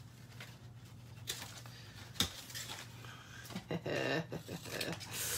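Quiet paper handling with a few light clicks over a steady low electrical hum, a short whine-like voice sound about four seconds in, and a rustle of paper near the end as a paper cutout is handled.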